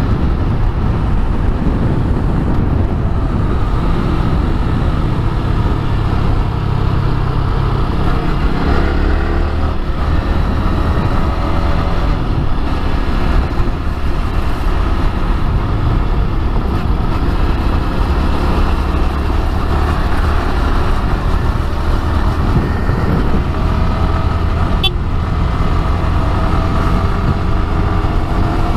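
Yamaha R15 V3's 155 cc single-cylinder engine running on the move in fifth gear, climbing in pitch twice as the bike accelerates, under a steady rush of wind and road noise.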